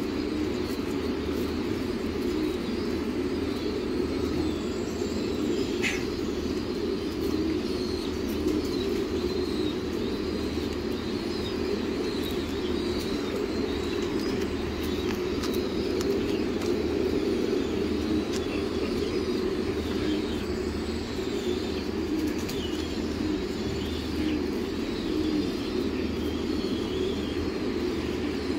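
A large flock of domestic pigeons cooing together in a dense, continuous low chorus, with scattered higher chirps over it.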